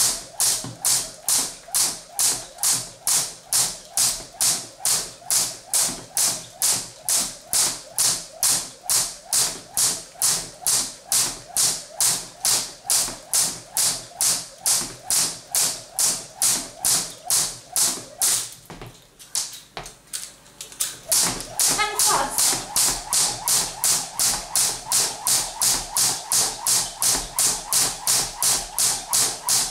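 Crossrope jump rope skipping at a slow, steady pace: the rope slaps the floor about twice a second. The slapping stops for about two seconds a little past halfway, then starts again at the same pace.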